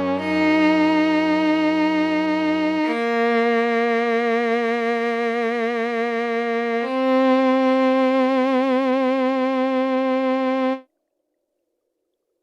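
Bowed-string patch from a Roland Verselab MV-1 playing long held notes with vibrato. The notes change twice, then cut off abruptly near the end.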